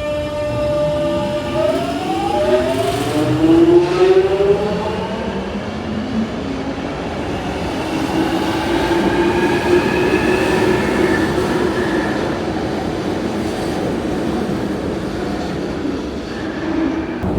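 London Underground 1996 tube stock train accelerating: its traction drive whines in several tones that climb in pitch over the first few seconds, with a second climbing whine about eight to twelve seconds in, over a steady running rumble.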